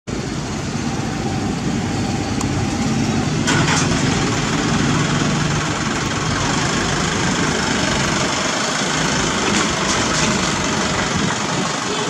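Isuzu light dump truck's diesel engine idling steadily, with a brief sharp knock about three and a half seconds in.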